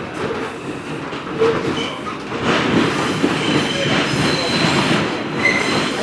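R142 subway car running between stations, heard from inside the car: steady rumble of wheels on rail with a few short, high wheel squeals. The noise gets louder about two and a half seconds in.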